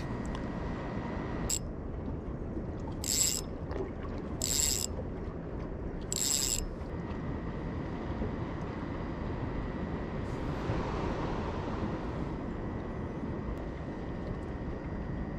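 Small boat lying still on calm water, with a steady low wash of water and wind and a faint steady high tone, broken by four short, sharp bursts of noise in the first seven seconds.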